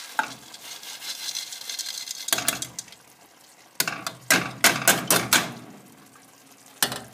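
Soaked lentils tipped from a metal colander into a simmering pot: a soft rush as they slide in, then the colander knocked sharply against the pot several times to shake the rest out, with a quick run of knocks from about four seconds in and one more near the end.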